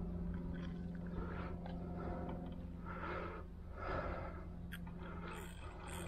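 A person breathing close to the microphone, several soft breaths, over a steady low hum.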